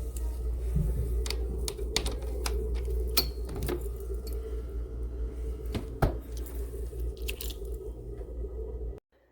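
A steady low hum with scattered clicks and knocks over it, like handling noise. It cuts off suddenly near the end.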